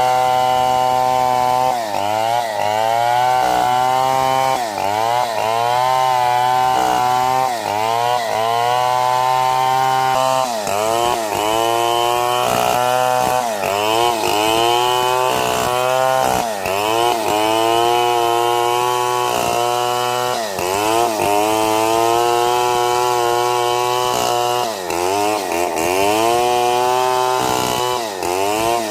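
Two-stroke chainsaw running at high revs while cutting wood. Its engine pitch dips sharply and recovers again and again as the chain bites and frees.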